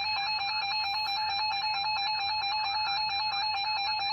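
Emergency Alert System two-tone attention signal, a steady electronic tone sounding ahead of a National Weather Service tornado warning.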